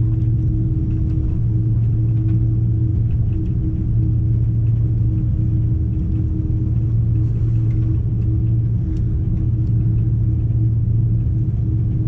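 Steady low drone inside the cabin of an Airbus A330-200, its Rolls-Royce Trent 700 engines at idle thrust as the aircraft taxis onto the runway, with a steady hum tone above the rumble.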